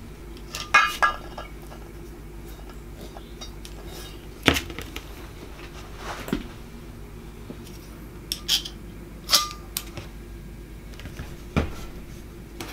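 Light taps and clinks on a cast-iron vice body as small pieces of masking tape are pressed on by hand, about half a dozen sharp ones spread through, over a steady low hum.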